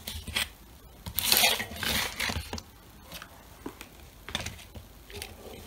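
Rustling and a few light clicks of hands handling tools and small objects on a cardboard-covered workbench, loudest about a second in.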